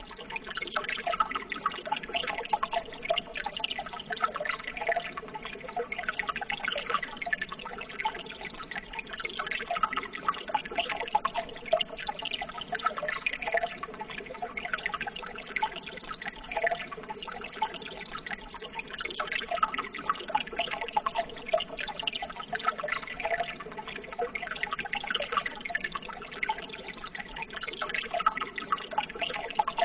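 Running water trickling and bubbling steadily, a continuous patter of small irregular splashes and gurgles.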